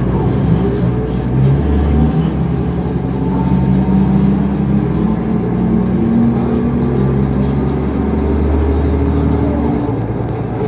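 A 2005 New Flyer D40LF transit bus, Cummins ISL diesel, running steadily under way, heard from a seat inside the cabin. A deep rumble underneath drops away near the end.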